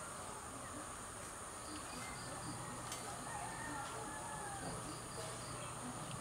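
Outdoor garden ambience: a steady, high-pitched drone of insects with short bird chirps and calls over it. A single sharp click comes about three seconds in.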